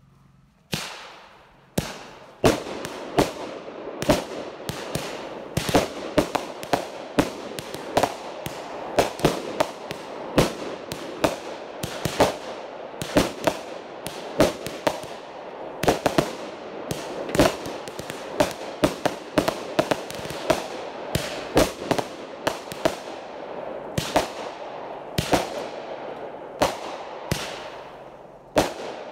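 Two 200-gram 25-shot consumer firework cakes firing together. After two single bangs in the first two seconds, a fast, uneven run of sharp shots follows, about two a second, with steady noise between the bangs.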